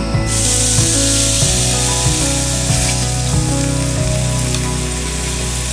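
A thick steak sizzling in a hot pan over a gas burner, the hiss starting suddenly just after the meat touches the pan and holding steady. Soft background music plays underneath.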